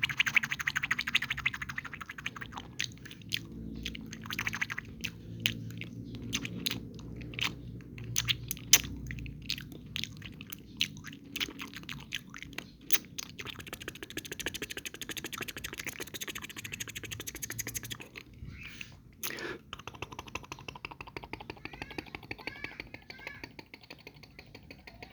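Close-miked ASMR mouth sounds and foam crackling: rapid clicks and crackles that thin to a softer rustle after about twenty seconds.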